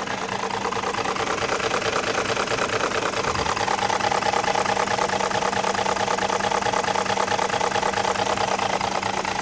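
BMW X5 E53's M62 V8 engine idling with a rapid knocking rattle from the VANOS variable valve timing, the fault awaiting repair; it grows a little louder about three seconds in.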